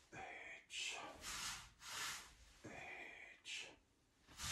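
A man breathing audibly in short, noisy breaths, about one every half second, with a brief pause near the end.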